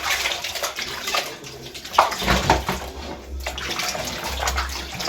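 Water splashing and sloshing as plastic fridge compartments and shelves are rinsed in a basin of water, with occasional knocks of the pieces against each other and the container, the loudest about two seconds in.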